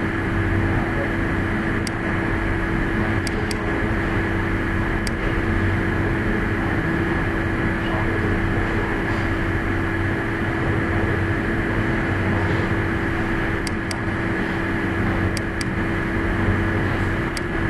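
Steady hum and hiss with a constant tone, overlaid by sharp computer mouse clicks: about nine in all, several as quick double-clicks.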